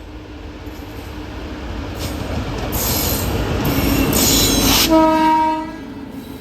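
Express passenger train approaching, its wheel-and-track rumble growing steadily louder, then a single horn blast about a second long around five seconds in.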